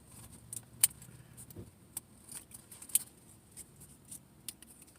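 Light clicks and taps of a razor blade and its homemade sheath being handled: a scattering of sharp single ticks, two of them louder, about a second and three seconds in. A faint low hum dies away about a second and a half in.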